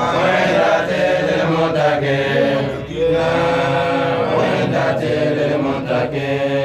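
Men's voices chanting a sung refrain in a local language, with long drawn-out held notes.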